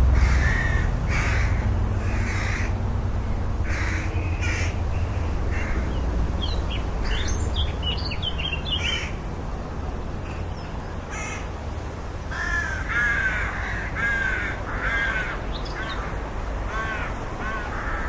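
Rook cawing: a series of harsh caws, with a run of quicker, higher chattering notes in the middle and a cluster of caws near the end, over a steady low rumble.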